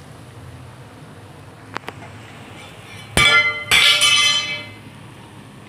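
A single sharp click, then stainless-steel cookware struck twice about half a second apart, each clang ringing on like a bell before it fades.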